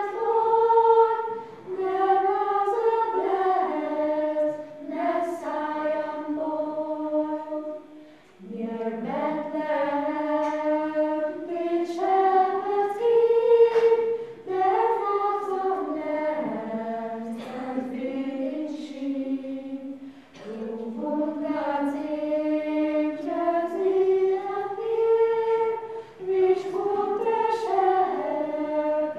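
A children's choir, with a woman's voice among them, singing a cappella. They sing one melody line in phrases a few seconds long, with short breaks for breath between them.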